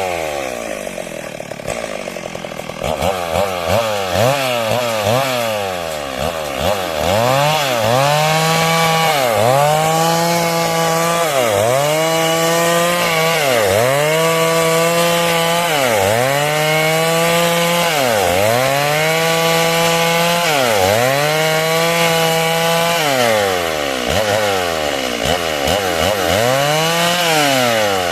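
Stihl MS 382 two-stroke chainsaw cutting through wood, running at lower revs for the first few seconds, then its engine pitch repeatedly dipping and climbing back about every two seconds as the throttle and load on the chain change.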